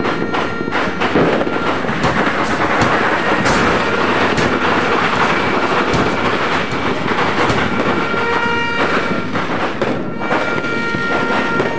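Dense, continuous crackling and banging of New Year fireworks and firecracker strings, with the bangs overlapping into one loud rattle. Steady high-pitched tones sound over it at times, strongest about eight seconds in.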